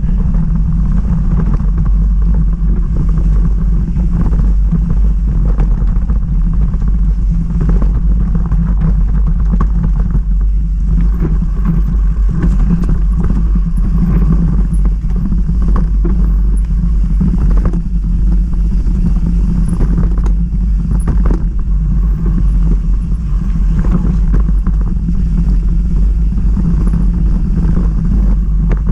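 BMC FS01 mountain bike rattling down a dirt trail at speed. Wind on the microphone and the tyres on the dirt make a steady, loud, low rumble. Frequent short knocks and clatters from the chain and frame come through it over the bumps.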